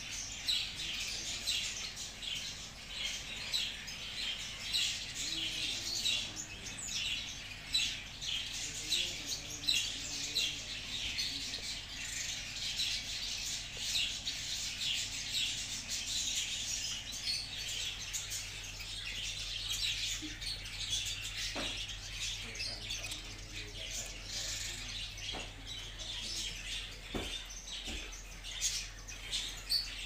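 Many small caged birds chirping together in a dense, continuous chatter, with a few sharp knocks in the second half.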